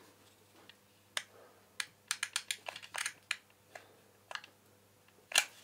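Hot melt glue gun being worked by hand, its trigger giving a scattered run of short, sharp clicks, several in quick succession about two seconds in and a louder one near the end.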